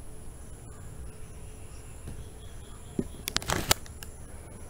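Quiet room tone with a faint steady high-pitched whine. About three seconds in, a click and then a short cluster of clicks and rustling, the loudest sound here: handling noise from the hand-held camera.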